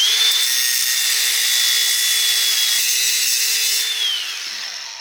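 Handheld power grinder running at full speed and grinding steadily on steel, taking the head off a motorcycle chain's link rivet so that the link can be removed. It spins up at the start, winds down about four seconds in, and stops just after.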